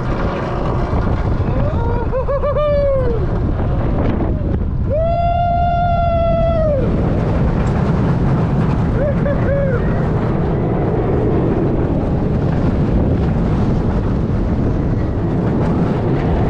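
Roller coaster train running fast along steel track, with a steady rush of wind over the microphone and the rumble of the wheels. Riders whoop three times, the longest held cry about five seconds in.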